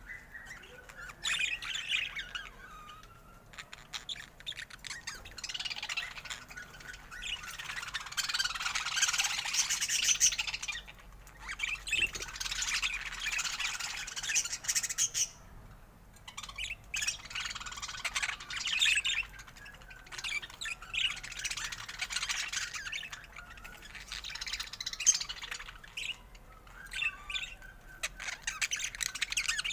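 Budgerigars chattering and warbling, in several spells of busy, high chirping and squawks with short lulls between them.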